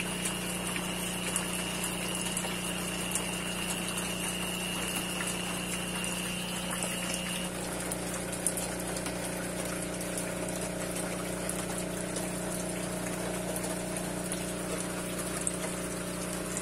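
Aquarium pump running with a steady hum and water bubbling and trickling in the tank; the tone of the hum shifts slightly about halfway through.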